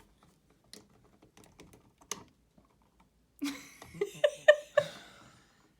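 Small clicks and taps of needle-nose pliers and a copper wire against an old light switch as the wire is worked out of its terminal. The clicks are sparse at first, then a quick run of sharper, louder clicks and squeaks comes a little over halfway through.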